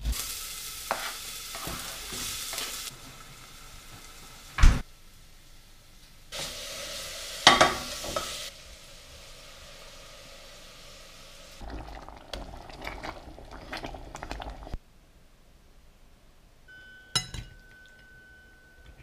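Cooking at the stove, cut together in short clips: food sizzling in a pot in stretches of hiss, with sharp clanks of metal utensils against pots and pans. The loudest sounds are a single sharp knock about five seconds in and a clatter around seven seconds in; near the end it goes quiet apart from one click.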